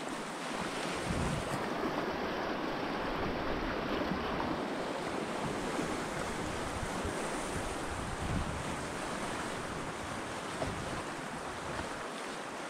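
Fast river water rushing through rapids around an open canoe, a steady churning noise, with wind buffeting the microphone now and then.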